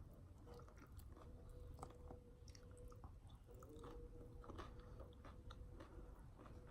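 Faint chewing: a person eating close to the microphone, with soft scattered mouth clicks and smacks.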